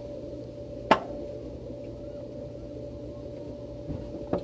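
A steady machine hum with a low drone and a higher tone under it, one sharp click about a second in, and a soft knock near the end as a glass of beer is set back down on a wooden table.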